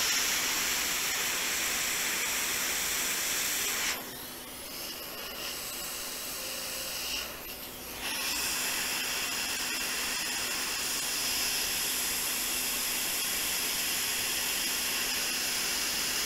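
Hot air rework station (Quick 861DW) blowing a steady hiss onto a MacBook logic board to heat a small resistor in flux. The hiss drops noticeably quieter for about four seconds in the middle, then comes back at full strength.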